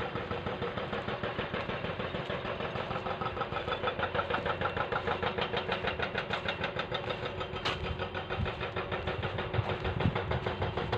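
An engine running steadily with a fast, even beat.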